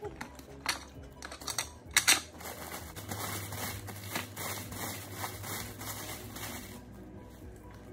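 A plastic bread bag crinkling and rustling as slices are pulled from the loaf, after a few sharp knocks, the loudest about two seconds in.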